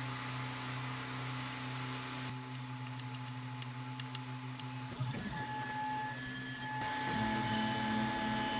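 Anet A8 3D printer's fans humming steadily. A few sharp clicks of its control-panel buttons come as the print is selected. From about five seconds in, the stepper motors whine in shifting pitches as the print head starts to move for the print.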